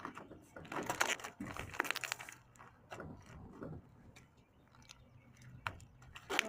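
Slime being squished and kneaded by hand with water worked into it, giving wet crackling and popping clicks, thick for about two seconds and then scattered pops.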